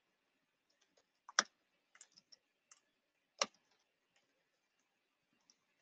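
A few scattered keystrokes on a computer keyboard, mostly faint, with two sharper clicks about two seconds apart.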